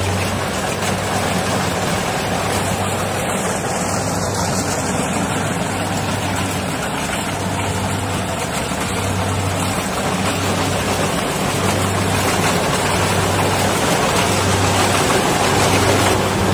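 Rice combine harvester running as it cuts rice: a steady engine and threshing noise, with a low hum that swells and fades about every second and a half.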